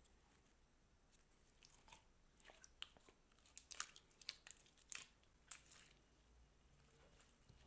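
Clear glassy slime squeezed, folded and stretched by hand, giving a run of small sharp crackles and pops. They come thickest in the middle few seconds and thin out near the end.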